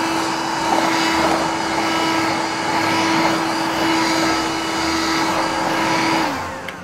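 Dubbed-in sound effect of a street sweeper's motor: a steady hum over a hiss that winds down with a falling pitch about six seconds in.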